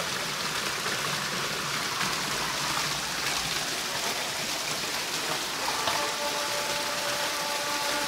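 Artificial waterfall: a curtain of water falling down a faux-rock wall into a stone-edged pool, a steady rush of splashing water.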